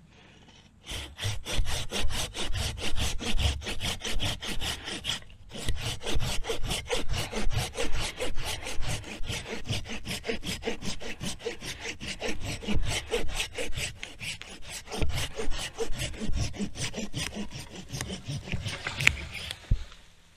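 Hand pruning saw cutting through the green trunk of a young black cherry sapling near its base, in steady, rapid back-and-forth strokes with a short pause about five seconds in. The strokes stop near the end as the trunk is cut through.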